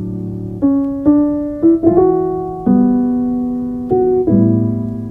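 Background music: a piano playing chords between sung lines, a new chord struck about every second, each fading before the next.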